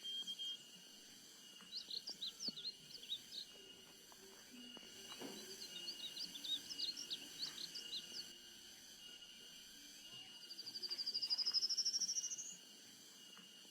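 Small birds chirping in two spells of quick high notes, then one fast trill that rises in pitch for about two seconds near the end, the loudest sound. A steady high tone runs beneath throughout.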